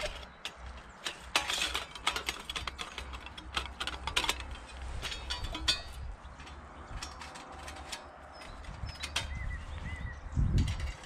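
Thin sheet-metal panels and grate of a folding camp stove clinking and rattling as they are handled and slotted together, with irregular sharp metal clicks. A brief low rumble near the end.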